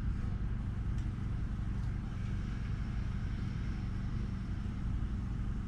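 Steady low mechanical hum, unchanging throughout, with a faint click about a second in.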